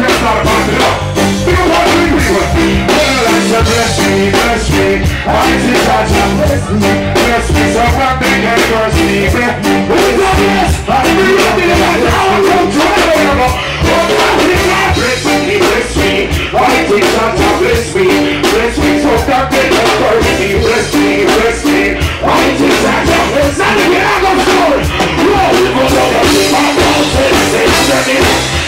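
Live reggae music: a full band playing a steady beat, with a voice singing over it.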